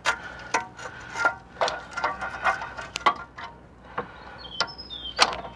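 A rubber exhaust hanger, sprayed with WD-40, squeaks and creaks as it is levered off its steel hanger with grips, amid a string of small metal clicks and knocks. There is a short high squeal near the end.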